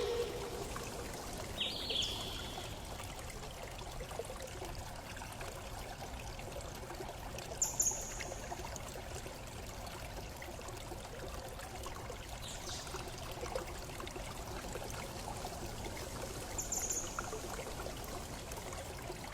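Steady rushing noise like running water, with a few short, high bird chirps spread through it.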